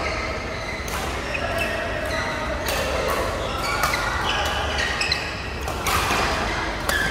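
Badminton rackets striking a shuttlecock in a doubles rally, a series of sharp smacks about a second apart, echoing in a large hall, the hardest hit coming about six seconds in.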